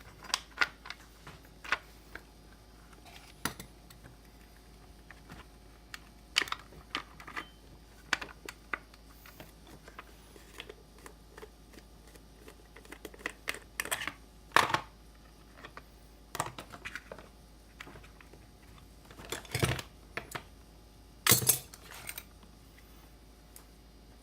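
Scattered light clicks, taps and clatter of small plastic and metal chainsaw parts and hand tools being handled during bench disassembly, with a few louder knocks about halfway through and near the end.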